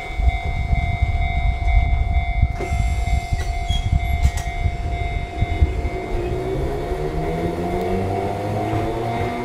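Chikuho Electric Railway electric train at the station: a heavy low rumble with a few knocks over a steady tone, then a motor whine that climbs steadily in pitch from about six seconds in as the train accelerates.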